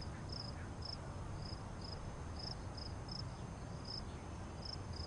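Crickets chirping faintly: short high chirps, about two a second and somewhat irregular, over a low steady background noise.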